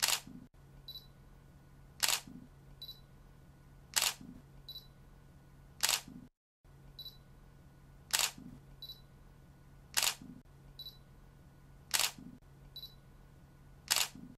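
Camera shutter clicking, one shot about every two seconds, each followed under a second later by a short high beep.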